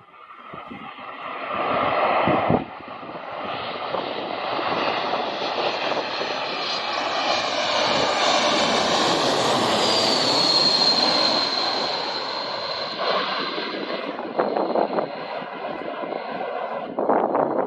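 A twin-engine jet airliner on final approach passes low overhead. Its engine roar builds, then a high whine drops in pitch as it goes over about ten seconds in. The roar then fades as the aircraft moves away toward the runway, with gusts of wind buffeting the microphone near the end.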